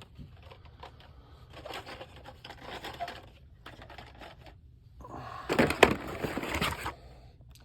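Carded Hot Wheels cars being handled and sorted out of a cardboard case: plastic blister packs and card rustling and clicking against each other in two spells, the second louder.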